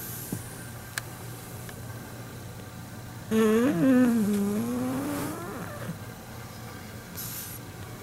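Pug snoring in its sleep: one long pitched snore, about three seconds in, that rises and then falls over roughly two seconds, with breath noise over it. Quieter soft breathing comes before and after.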